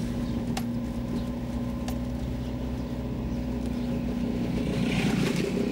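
Car engine running with a steady hum, heard from inside the car, with two faint clicks about half a second and two seconds in.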